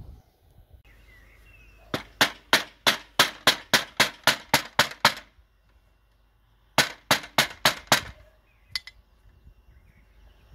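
Ball-pein hammer striking a wooden batten held against the edge of a locker door panel, knocking the new hardwood plywood panel into the door's frame. A quick run of about a dozen blows, about four a second, then a pause and about five more.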